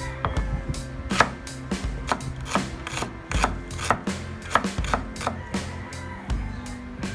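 A knife chopping on a cutting board, with about a dozen separate strikes at an uneven pace of one to two a second.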